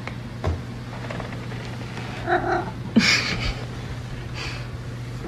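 Domestic cat giving a short two-part meow about halfway through. A sharp knock and a brief clatter follow just after; they are the loudest sounds. A steady low hum runs underneath, and there are a few lighter knocks.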